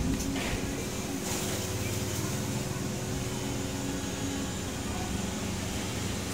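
Steady low engine hum of a vehicle running, with a few faint rustles and clicks from a USB charging cable being unwound.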